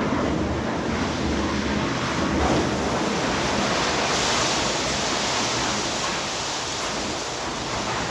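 Steady rushing noise of wet concrete being poured into a foundation pit.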